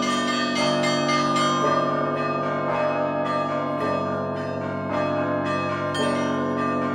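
Russian Orthodox trezvon: one bell-ringer sounds a full set of church bells together by their ropes. Small bells are struck in a quick running rhythm over the lasting hum of the larger bells. The tower's ropes and chains are newly re-rigged, and the peal sounds soft.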